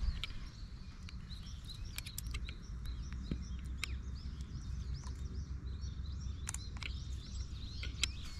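Small birds chirping steadily, many short high calls, over a low rumble of wind on the microphone, with a few sharp clicks scattered through.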